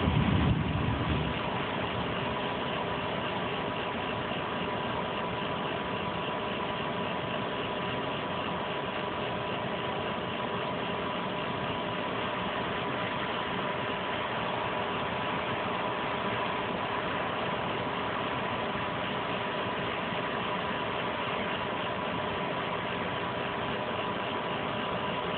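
Steady machine hum with several unchanging tones over an even noise bed, like an idling engine or running machinery, with a brief low rumble in the first second.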